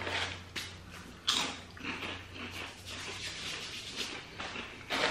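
Crunching and chewing of ridged potato chips: a handful of short, sharp crunches spaced about half a second to a second apart, over a low steady hum.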